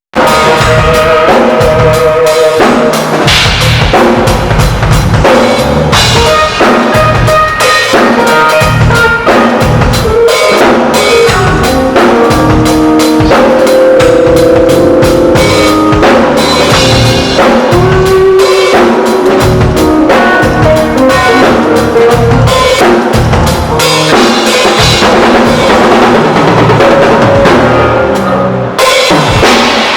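Drum kit played loudly in a sound check: bass drum, snare and rimshots in a fast, busy pattern, with pitched notes ringing alongside, briefly dropping off about two seconds before the end.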